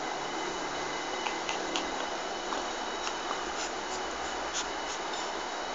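Steady hiss with soft, scattered clicks and rustles starting a little after a second in, a few a second, as a small dog chews and mouths a hand right beside the phone.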